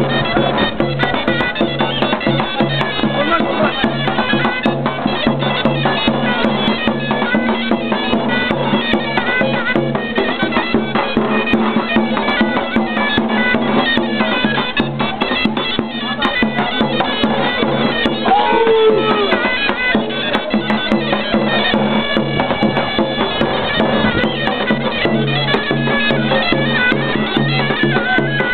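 Tulum, the Black Sea bagpipe, playing a folk dance tune, with sharp beats under the melody.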